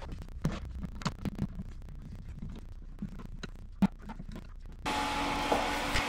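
Small clicks and knocks of handling, with one sharp click near four seconds. Nearly five seconds in, a steady whir with a faint hum starts abruptly: a 240-volt electric heater's fan running.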